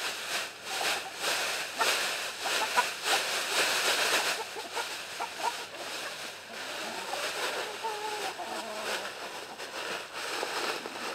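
Clear plastic bag rustling and crinkling as lettuce scraps are shaken out of it, densest in the first four seconds. A flock of hens clucks over the food, with a few short calls later on.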